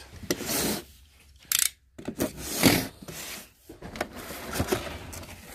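Cardboard box being handled and opened: several rough scraping and rubbing sounds of cardboard, with a short sharp crack about one and a half seconds in and a few light clicks later.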